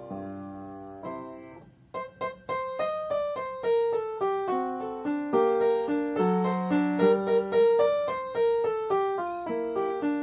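Solo piano background music: a held chord fades away, then a quick, even run of notes starts about two seconds in.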